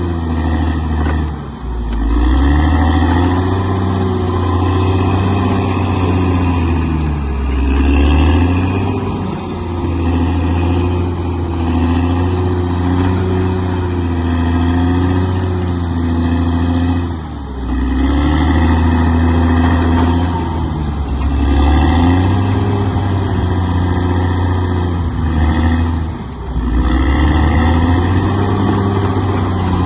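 A bulldozer's diesel engine running hard and steadily, its pitch dipping briefly and recovering about five times.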